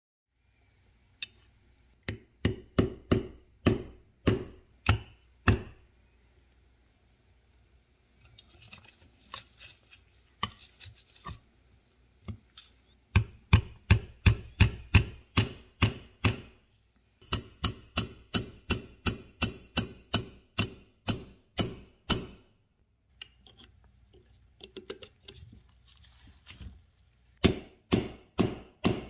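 A hammer peening over a steel rivet head on a cast-iron tobacco cutter set on a steel block, metal on metal. The blows come in runs of about three a second, with lighter taps in between.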